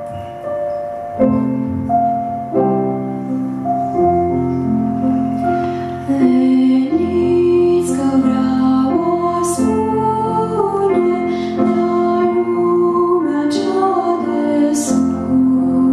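Piano playing the introduction to a song. About six seconds in, a woman's solo voice comes in singing with it through a microphone.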